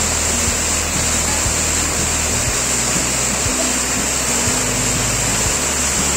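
A waterfall rushing steadily over rocks, heard under background music with a bass line and a steady beat of about two a second.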